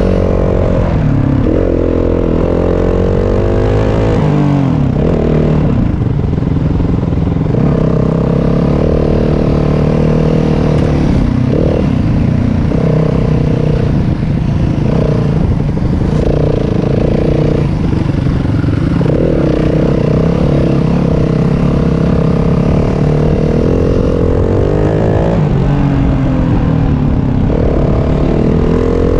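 Yamaha WR250F dirt bike's single-cylinder four-stroke engine running under way on a trail, its note holding steady in stretches and rising and falling several times as the throttle opens and closes.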